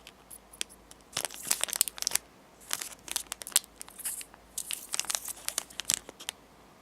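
Plastic snack packaging being handled and crinkled, in three bursts of crackling with short pauses between them.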